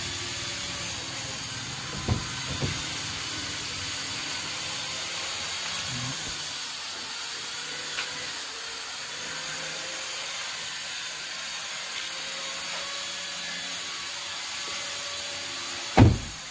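Steady hiss and a faint low hum with a few light knocks, then one loud thump near the end: a 2014 Hyundai i10 hatchback's door being shut.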